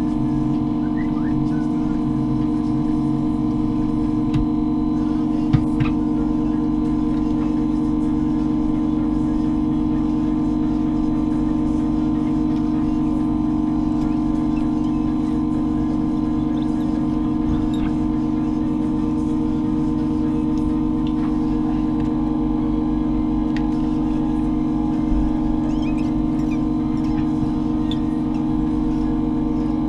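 Steady electrical machine hum holding several fixed pitches, with a few light clicks and one sharper knock about five and a half seconds in.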